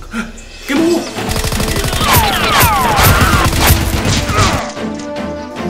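Rapid automatic gunfire sound effects with falling whistles, over background music. A brief lull comes at the start before the firing picks up about a second in.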